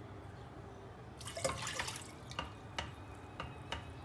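A glass of water poured into a stainless steel pot: a short splash about a second in, then a few drips.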